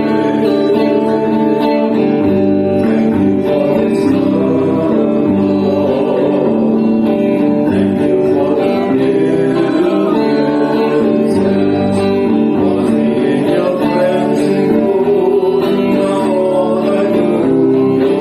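Music: a song with guitar and singing, playing steadily.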